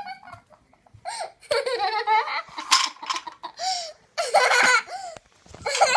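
A young child laughing and giggling in several short, high-pitched bursts.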